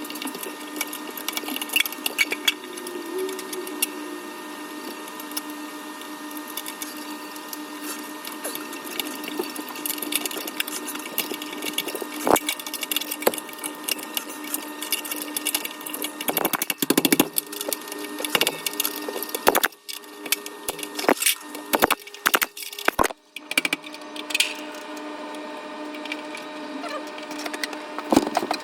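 Clicks, taps and knocks of hand work on an electric water heater's wiring and access covers, thickest in the middle of the stretch, over a steady hum.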